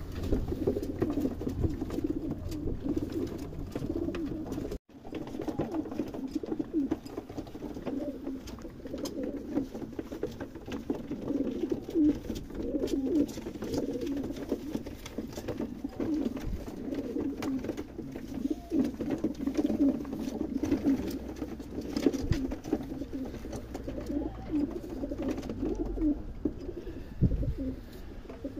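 Many pigeons cooing at once, overlapping in a continuous chorus, with scattered light clicks. The sound cuts out for an instant about five seconds in.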